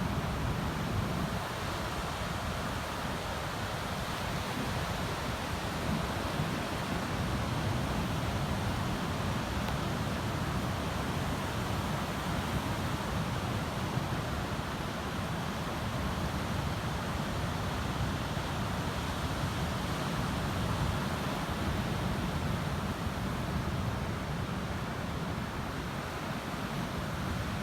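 Atlantic Ocean surf washing steadily onto the beach, a continuous rush of waves with wind on the microphone.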